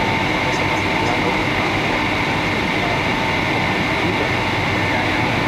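Cabin noise inside a Boeing 757-200 at taxi: the jet engines' even rush with a steady high whine over it.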